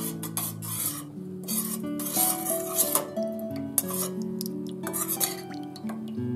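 Metal spoon stirring a liquid soy-sauce marinade in a stainless steel bowl, scraping and lightly clinking against the bowl's sides in repeated strokes, over soft background music.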